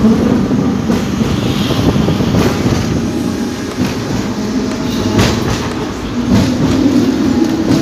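Hong Kong double-decker electric tram running along its street track: a steady rumble of wheels on rail, with a few sharp clacks about two, five and six seconds in.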